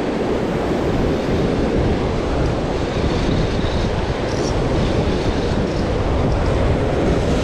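Sea surf breaking on shore rocks with wind buffeting the microphone: a loud, steady roar.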